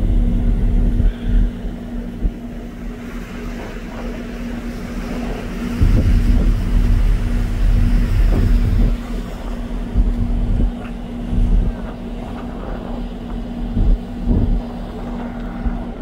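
A ferry's engines give a steady, even hum. Wind buffets the microphone in heavy low gusts, strongest at the start and again from about six seconds in.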